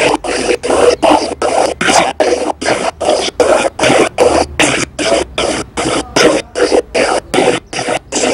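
Spirit Box sweeping through radio stations: loud chopped bursts of static and radio fragments, cut off by short gaps about three times a second.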